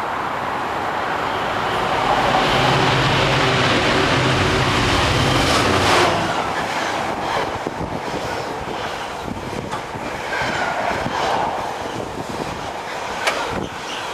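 Container freight train passing at speed. The locomotive's pitched hum grows and peaks about six seconds in, then gives way to the rushing rumble of container wagons, with their wheels clicking on the track.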